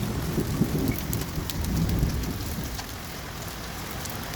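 Hail and rain pelting down: a steady hiss with many sharp ticks of stones striking, over a low rumble that is strongest in the first couple of seconds.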